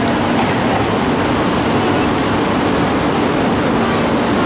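Shinkansen bullet train on the far track of the station: a steady, loud rush of rail and running noise.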